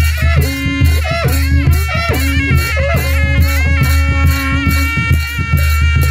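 Traditional Nepali Saraya (sarainya) dance music: a reedy wind-instrument melody over a fast, steady drum beat with a heavy bass.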